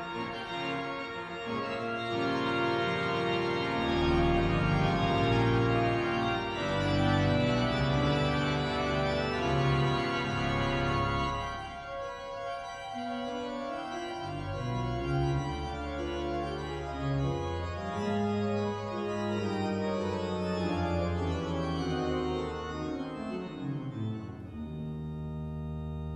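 Rushworth and Dreaper pipe organ playing a toccata, full and loud for the first ten seconds or so, then thinner and quieter, with moving lines over low pedal notes, settling on a held chord near the end.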